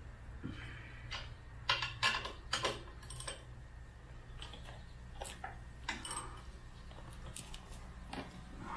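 Steel bolts, washers and nuts clinking and clattering as gloved hands handle the hitch-mounting hardware: a scatter of short sharp clinks, the loudest cluster about two seconds in and a few more later on.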